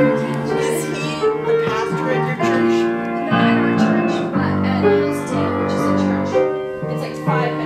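Grand piano played live: a slow melody over held chords, the harmony changing about once a second.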